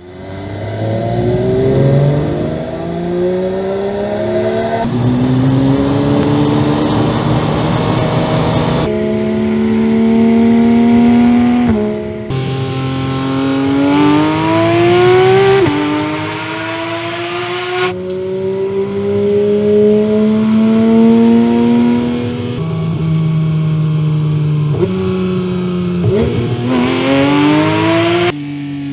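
Porsche 911 GT3 RS's naturally aspirated flat-six accelerating hard, its pitch climbing again and again up through the gears. Sudden breaks every few seconds where separate runs are cut together.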